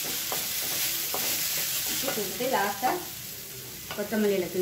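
Grated beetroot sizzling as it is stir-fried in a metal kadai, a wooden spatula stirring and scraping through it with a few light knocks against the pan. The sizzle is strongest in the first couple of seconds and then eases off.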